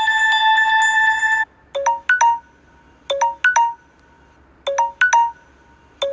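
Samsung Galaxy S7 edge ringtones being previewed in turn. A held electronic tone with a few note changes stops about a second and a half in and gives way to a different ringtone: a group of three quick notes repeating about every second and a half.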